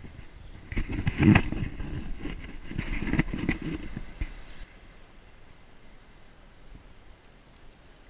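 Loud, irregular knocks and rubbing on the camera microphone for about four seconds as the camera is handled and moved. After that only a faint, steady wash of surf.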